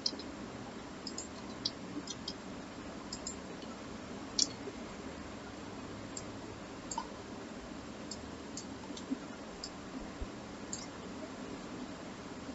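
Faint, irregular clicks of a computer mouse, about a dozen spread over the stretch, over a steady low room hum.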